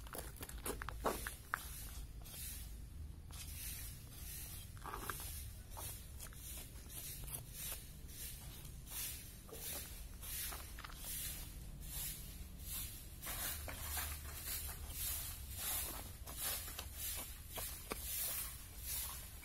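Knife strokes cutting a goat's hide away from the carcass: short, high, scraping swishes, coming about two a second in the second half, over a low steady rumble. Two sharp clicks sound about a second in.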